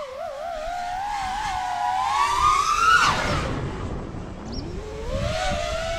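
FPV freestyle quadcopter's motors whining, the pitch wavering and sliding with the throttle. The whine climbs to its highest and loudest about halfway through, drops away sharply, then rises again near the end.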